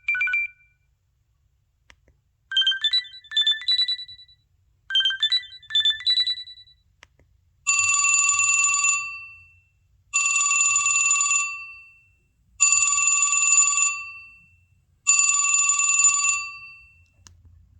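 LG-SH840 mobile phone ringtones playing. First comes a short two-note beep, then a few quick runs of rising electronic beeps. From about 8 seconds in, a bell-like ring sounds four times, each ring about a second long and fading, about two and a half seconds apart.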